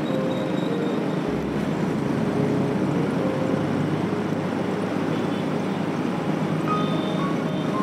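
Motorcycle riding along: steady engine and road noise with wind rush on a helmet-mounted mic, a low rumble coming in about a second in. A few faint short tones sound near the start and the end.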